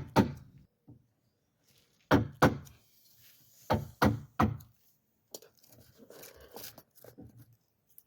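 Hammer striking a wood chisel, chopping into the grain of a door edge to cut a hinge recess. The blows come in short groups of two or three, about seven in all in the first half. Softer, scratchier sounds follow in the second half.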